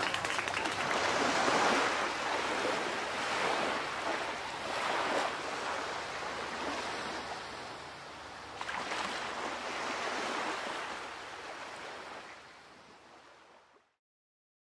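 Sea waves washing over a rocky shore, swelling and ebbing three times and fading out near the end.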